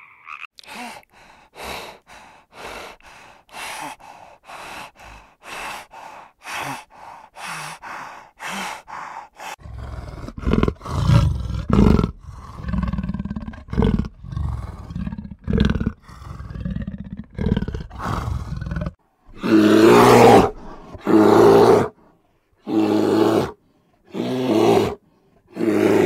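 A big cat vocalizing. First comes a run of short rhythmic pulses, about two a second. Then a louder low rumbling growl follows, and from about twenty seconds in come several loud calls, each about a second long, with short silent gaps between them.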